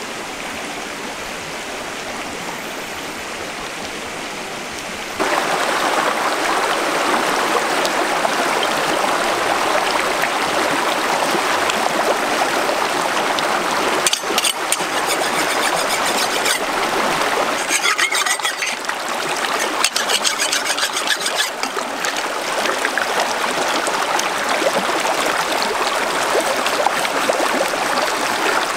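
Shallow stream rushing over rocks, a steady wash that gets louder about five seconds in. Twice in the middle, a few seconds of quick rasping strokes: a knife scraping scales off a fish.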